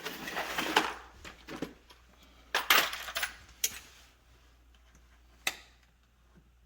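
Clicking and clattering of small hard plastic and metal parts being handled while a refrigerator's electronic control board and its wire connectors are worked loose: a clatter at the start, another about two and a half seconds in, then single sharp clicks.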